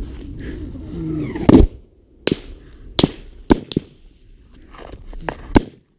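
Small-arms gunfire: about seven sharp cracks at irregular intervals, the loudest about a second and a half in.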